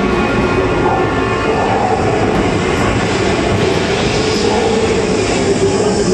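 Steam train passenger car rolling along the track, heard from on board: a steady rumble of wheels on rails.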